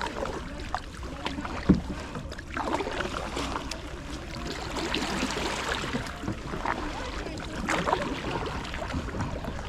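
Kayak paddling: paddle blades splashing and dripping in shallow water, with one sharp knock about two seconds in.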